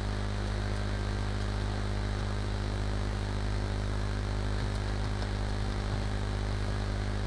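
Steady low electrical hum with a background hiss, unchanging throughout.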